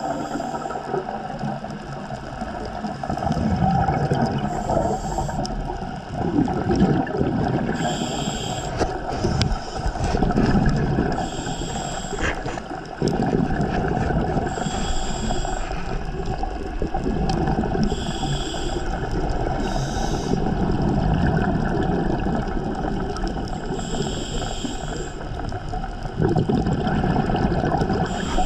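Underwater sound of a scuba diver's regulator breathing: short high-pitched hisses of inhalation every three to four seconds over a shifting low rumble and gurgle of exhaled bubbles.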